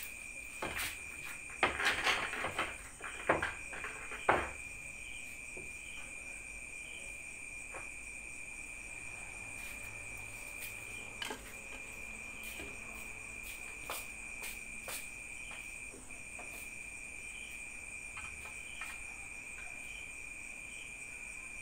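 Crickets chirping in a steady high trill. About two to four seconds in there are a few sharp clicks and knocks, pool balls and cues being handled around the table.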